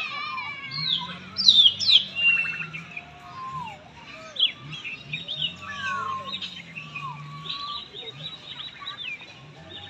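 Several birds chirping and calling at once, a busy mix of short chirps and sweeping whistled notes, with the loudest sharp down-slurred calls about one and a half to two seconds in.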